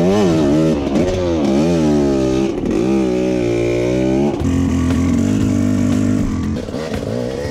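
Dirt bike engine revving up and down several times, then running at a steadier, lower pitch from a little past halfway.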